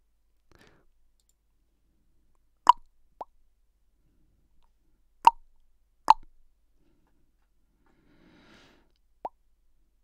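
Sharp mouth pops and clicks made into a close microphone as hands-free noise commands for Talon voice-control software: the pop clicks a button and the cluck repeats the action. There are five of them, three loud and two softer, with faint breaths in between.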